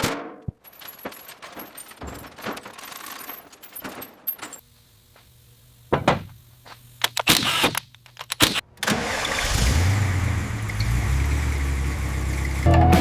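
Keys jangling and sharp clicks, then about nine seconds in the 1952 Chevrolet 3100 pickup's engine starts and keeps running with a steady low rumble.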